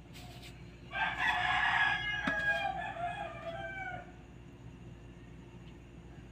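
A rooster crowing once, a call of about three seconds that trails off at the end, with a sharp click partway through.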